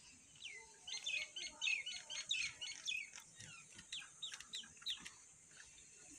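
Birds chirping: a quick run of short, high chirps that thins out after about three seconds.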